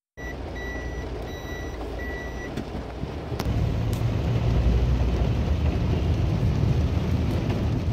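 Four short electronic beeps in the first two and a half seconds, over the steady rumble of a car's cabin with rain on the glass; the rumble grows louder about three seconds in.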